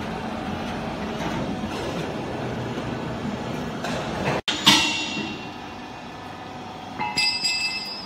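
Vertical hydraulic baler running as its press plate travels back up, a steady mechanical hum. A little over four seconds in comes a single sharp metal clang that rings and fades, and near the end a burst of ringing metallic clinks and rattles as the baler's steel door is unlatched and swung open.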